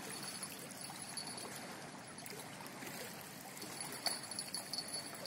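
River water washing and lapping against the rocks at the water's edge, a steady soft wash. A faint high steady tone comes in near the end.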